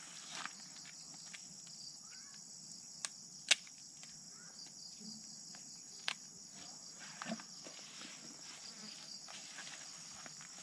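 Steady high-pitched chorus of insects, broken by a few sharp clicks, the loudest about three and a half seconds in and another about six seconds in.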